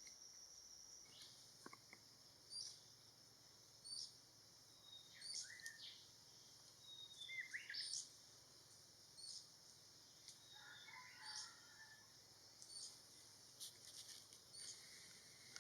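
Faint wild birdsong: scattered short high chirps, a few quick down-slurred whistles about halfway through and a brief chattering phrase near 11 seconds, over a steady high insect whine that stops about a second in.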